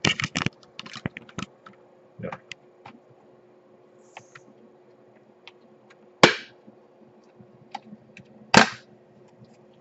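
Plastic retaining clips of an Asus G55VW laptop's LCD bezel snapping loose as the bezel is pried off the screen lid by hand. A quick cluster of sharp clicks at the start and a few lighter ones follow, then two loud single snaps about two and a half seconds apart.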